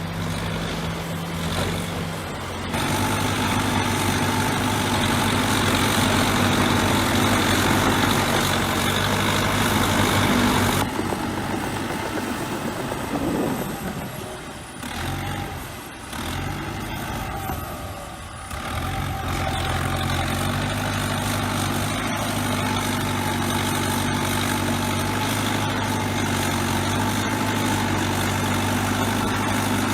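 A bulldozer's diesel engine running steadily. It picks up and grows louder about three seconds in, eases off and dips unevenly around the middle, then settles back to a steady run for the last ten seconds.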